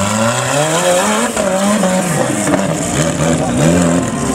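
Off-road buggy's engine revving hard as it climbs a steep dirt slope, its pitch rising sharply near the start and then repeatedly climbing and dropping with the throttle.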